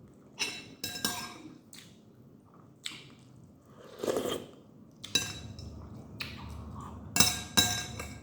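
Dishware clinking: several sharp, ringing clinks as a plate or bowl is handled during a meal. There are clinks near the start, one about five seconds in and a louder pair about seven seconds in, with a duller, lower sound in between.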